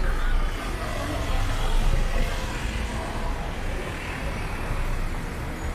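Street ambience in a busy market lane: a steady low motor-vehicle rumble under a haze of faint passers-by's voices.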